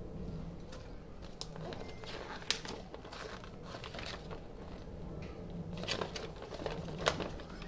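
Paper rustling as a folded instruction leaflet and a warranty card are handled and unfolded, with two sharp paper snaps, about two and a half seconds in and the loudest near the end. A steady low hum runs underneath.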